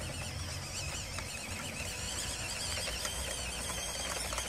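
WPL B-16 6x6 RC truck's electric motor and gear drive whining as it drives across grass, the high pitch wavering up and down.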